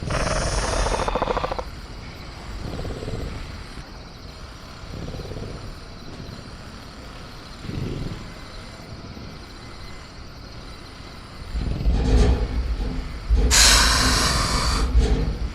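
Velociraptor sound effects of a caged raptor: a rasping growl at the start, low rumbling with small swells through the middle, then a loud low rumble and a burst of harsh rattling noise near the end, as of the cage being shaken.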